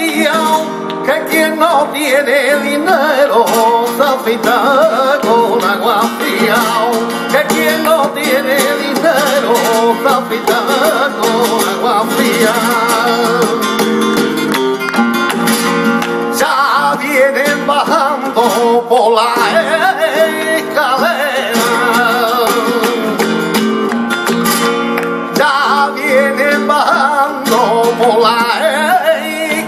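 Flamenco tangos: a male cantaor singing over a flamenco guitar, with hand-clapped palmas keeping the beat.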